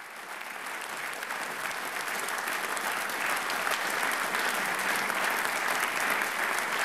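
An audience applauding, fading in over about the first second and then holding steady.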